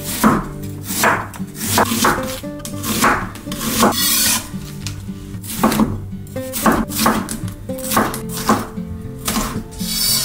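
Chef's knife chopping onion and bell pepper on a bamboo cutting board: a dozen or so irregular cuts, each ending in a sharp knock of the blade on the wood. Background music runs underneath.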